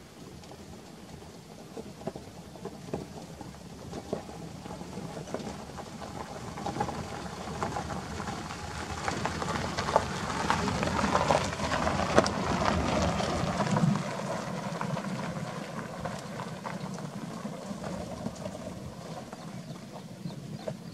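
Small Suzuki hatchback driving slowly over a rough gravel dirt track, its tyres crunching and popping loose stones over the low hum of the engine. It grows louder as it approaches, passes close about halfway through, and fades as it drives away.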